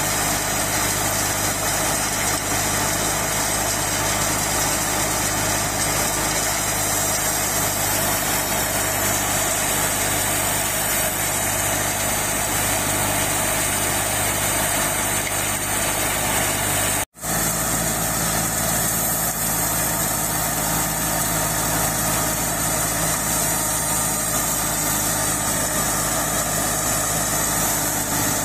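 Fiat 480 tractor's three-cylinder diesel engine running steadily, driving a tractor-powered thresher, with the engine and threshing drum making one continuous drone. The sound drops out for a split moment a little past the middle, then carries on unchanged.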